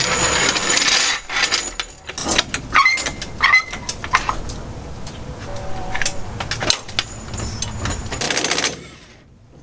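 Metal clanks, knocks and clicks of tools on the car's rear suspension hardware as the leaf spring is worked loose, with a brief metallic ring a few seconds in and a short burst of rapid clicking near the end.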